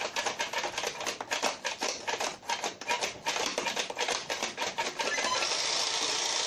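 Toy pinball gumball machine being played: rapid, irregular plastic clicking and rattling, giving way to a steady hiss about five seconds in.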